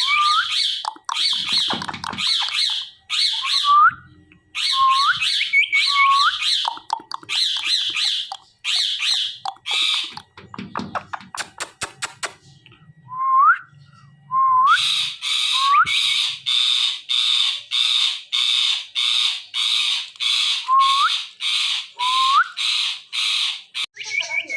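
Ringneck parrots giving repeated harsh squawks, each carrying a short rising whistle-like note, in bouts. There is a brief run of quick clicks about halfway through, and a steady series of about two squawks a second near the end.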